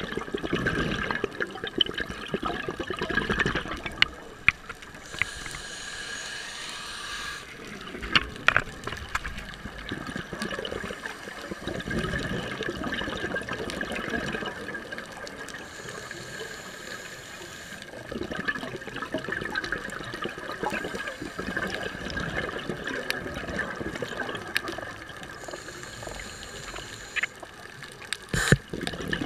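Scuba breathing through a regulator, heard underwater: about every ten seconds a hiss of inhalation, then several seconds of rumbling, bubbling exhalation. A faint steady whine sits underneath, and there are a couple of sharp clicks near the end.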